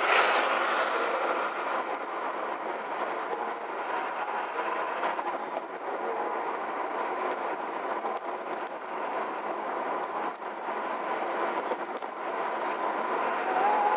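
Steady road and tyre noise heard from inside a moving car, with faint steady tones mixed in and a brief swell at the very start.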